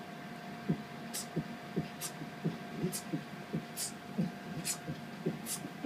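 Muffled dance music thumping through the walls: a steady bass-drum beat about three times a second, with a short hiss about once a second, over a steady electrical hum.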